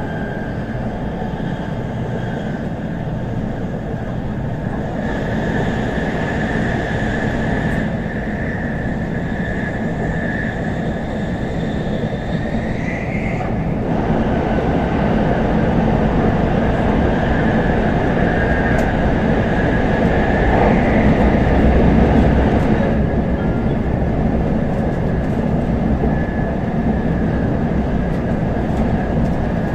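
Running noise heard inside an N700S Shinkansen car at speed: a steady rumble of the train on the rails with a faint high whine. About halfway through it gets louder and thicker for several seconds as the train passes through a tunnel, then eases.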